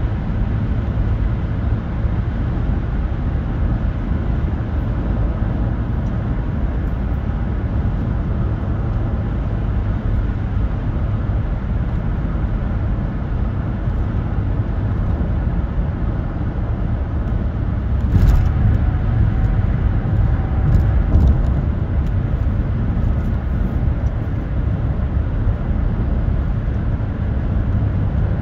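Tyre and road noise of a car driving on a highway, heard from inside the car: a steady low rumble. About two-thirds of the way through there is a sharp thump, then the noise is louder for a few seconds with a faint hum and a couple more knocks, as the tyres run over a grooved bridge deck.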